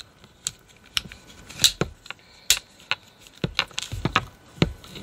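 Plastic hose cuff and nozzle attachment of an AiiYME dog dryer being handled and clipped together: a string of short, irregular hard plastic clicks and knocks.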